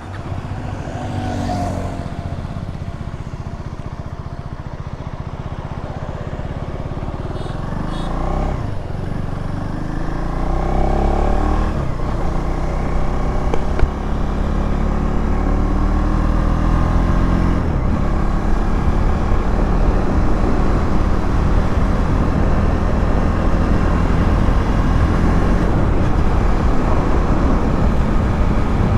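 KTM Duke 390's single-cylinder engine pulling away and accelerating, its pitch rising in steps over the first dozen seconds. It then runs steadily at speed under a growing rush of wind noise on the microphone.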